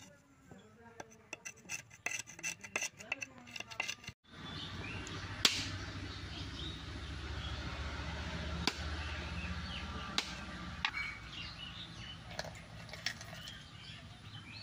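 Large curved knife scraping husk fibre off a coconut in quick rasping strokes. Then a few sharp knocks of the blade against the coconut as it is cracked open, with birds chirping.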